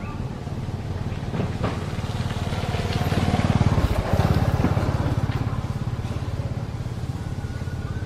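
A small motor vehicle's engine passing by: its low, rapid firing rises to a peak about three to four seconds in, then fades away.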